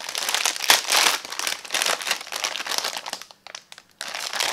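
Thin plastic packaging bag crinkling and rustling as hands crumple it, in irregular bursts with a short pause about three and a half seconds in.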